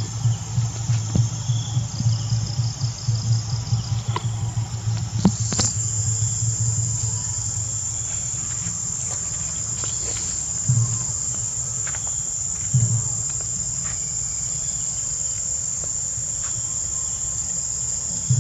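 Steady, high-pitched drone of insects, with a fluttering low rumble under it for the first six seconds or so.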